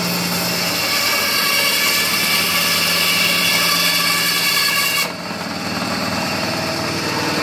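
Benchtop band saw running, its blade cutting through a husked coconut with a high whine that stops suddenly about five seconds in as the blade comes through; the saw's motor hum carries on after.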